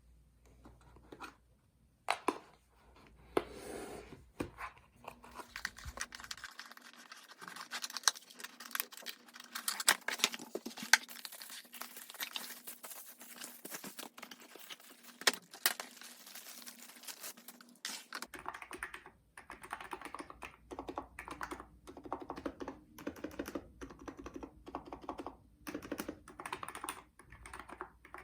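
Typing on a Hansung electro-capacitive keyboard with 35 g switches. A few separate keystrokes at first, then a long run of fast, dense typing, easing into slower, evenly spaced keystrokes.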